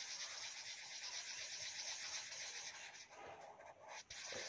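Yellow felt-tip sketch pen scribbling on paper in quick back-and-forth strokes as it colours in a shape, with a short break a little after four seconds.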